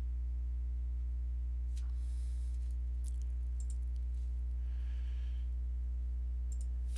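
Steady low electrical hum from the microphone setup, with a few faint clicks and a soft rustle partway through.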